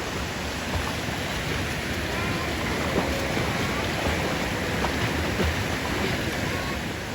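Forest stream rushing steadily over rocks.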